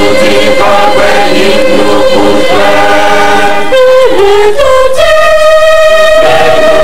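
A choir singing loudly, several voices together on sustained notes, with a long held note through the last couple of seconds.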